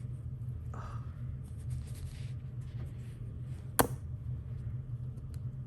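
Small metal parts of a magnetic fidget slider being handled during disassembly: one sharp click a little before four seconds in and a few faint ticks near the end, over a steady low hum.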